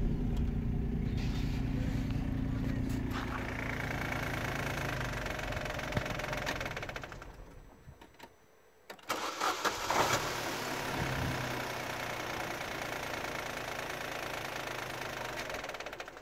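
Opel Z10XE 1.0-litre three-cylinder petrol engine idling steadily just after a start. A little past halfway it fades almost to nothing for about a second, then comes back and idles on.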